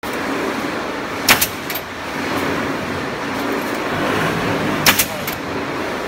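Harvest CDP303 pallet nailing machine at work: its pneumatic nailers fire sharp bangs in two pairs, one about a second in and one near five seconds, each a loud shot followed by a softer one, over the machine's steady running noise.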